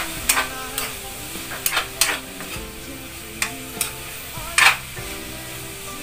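A metal spatula scrapes and clanks against a wok as vegetables are stir-fried, with the bitter melon and carrots sizzling in the hot pan. There are about eight separate strokes, the loudest a little over four seconds in.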